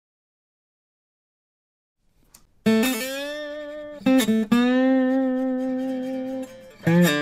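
Silence, then from about two and a half seconds in, an EKO MIA 018 CW acoustic guitar set to a very high action, played bottleneck-style with a slide: a few loud plucked notes that ring on with a slightly wavering pitch.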